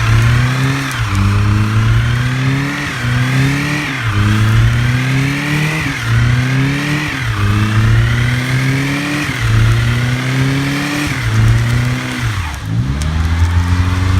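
A 2007 Honda Civic's engine revving over and over during a burnout. The pitch climbs for about a second, drops sharply, and climbs again, and near the end it settles briefly to a lower, steady note.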